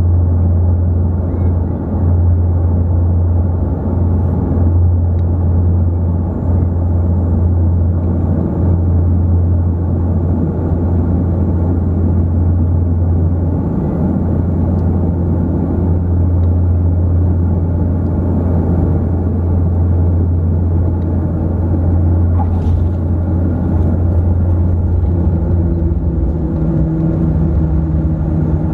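Cabin drone of the An-24B's Ivchenko AI-24 turboprop engines and propellers, a steady deep hum as the airliner lands. Near the end the drone changes tone as the engines change setting during the landing roll.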